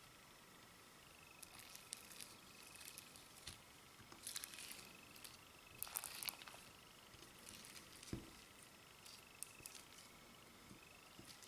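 Clear slime with eyeshadow mixed in, squeezed and stretched by hand, giving faint wet clicks and crackles that start about a second in and come in irregular clusters.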